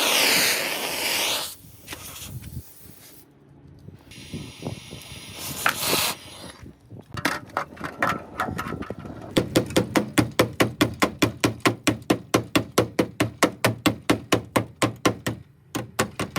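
A loud hissing rush for about a second and a half, then, from about halfway through, a steady run of sharp strokes about four a second, typical of hand tool work on sheet metal.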